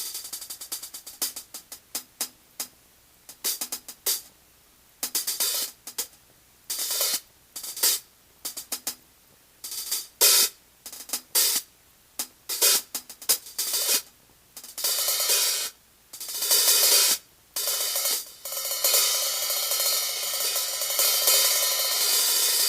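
Electronic hi-hat sounds from a Roland TD-20 drum module, triggered from a DIY cymbal pad and an FSR hi-hat pedal controller. The strokes alternate between short, choked closed hits and longer ringing open hits as the pedal changes the hi-hat's openness. Near the end they run together into a continuous open-hat wash.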